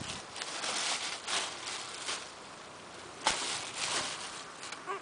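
Rustling and crinkling of hands handling a plastic bag of hay and the kits, with one sharp click about three seconds in. Near the end, a baby mustelid kit gives a short squeak.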